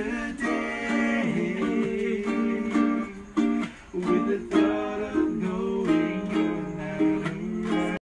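An acoustic string instrument strummed in a steady rhythm of chords. It breaks off abruptly near the end.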